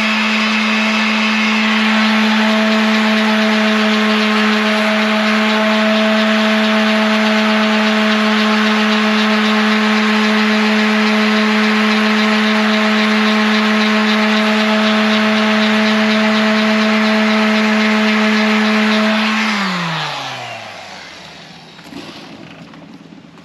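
Electric orbital sander running steadily against a car fender's painted sheet metal, with a steady hum. About 19 seconds in it is switched off and winds down, its pitch falling to a stop, and faint hand rubbing on the panel follows.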